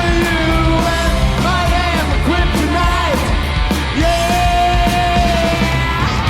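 Rock band playing with a lead singer over bass, guitar and drums; the singer holds one long note a little past the middle.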